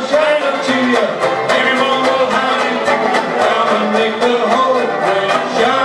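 Live band playing: men singing together over strummed banjos, with a steady strumming rhythm.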